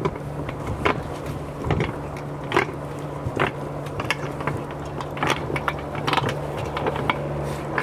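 A cast net being hauled in by its rope against the side of a boat: sharp clicks and knocks about once a second over a steady low hum.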